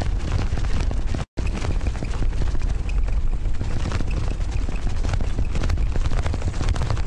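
Wind buffeting the microphone and a bicycle rattling while it is ridden, with dense rapid knocks and clicks throughout. The sound drops out completely for a moment just over a second in.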